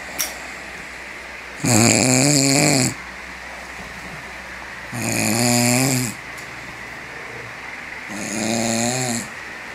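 A person asleep and snoring: three loud snores, each about a second long, coming about every three seconds.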